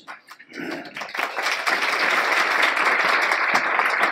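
Audience applauding. The clapping starts about a second in and quickly swells to a steady level.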